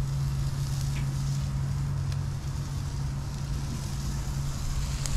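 Fish sizzling on a grill with faint crackles, over a steady low hum.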